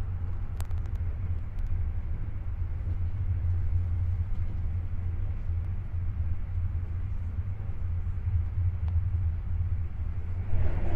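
Steady low rumble of a moving passenger train, heard from inside the carriage. Near the end a louder rushing sound rises as another train passes close alongside.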